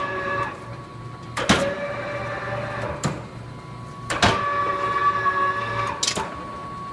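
The lathe's power chuck drive runs twice, about a second and a half and then about two seconds, each run starting and stopping with a sharp click, over a steady high whine from the shop.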